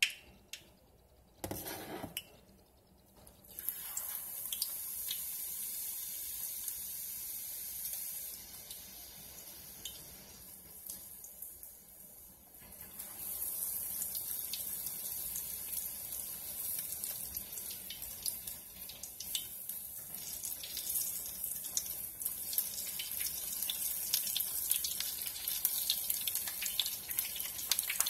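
Shell-on shrimp deep-frying in a pot of hot oil: a steady sizzle with scattered crackling pops. It sets in a few seconds in as the shrimp go into the oil, eases off briefly, and from about thirteen seconds in grows louder. A few knocks come just before it starts.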